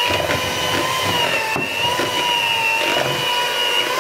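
Philips electric mixer's motor running steadily, a whine that wavers slightly in pitch, its beaters working through thick choux pastry dough that has begun to stiffen.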